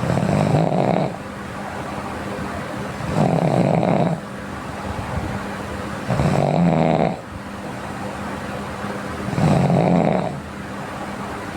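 A sleeping person snoring: four snores in a regular rhythm, each about a second long and about three seconds apart, over a steady background hum.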